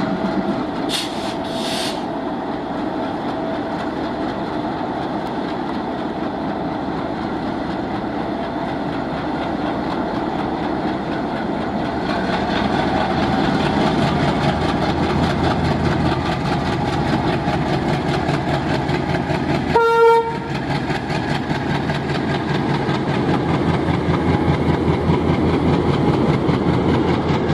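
Twin ALCO WDM-3D diesel-electric locomotives approaching with a steady engine rumble that grows louder about halfway through. The locomotive horn gives one short blast about two-thirds of the way in.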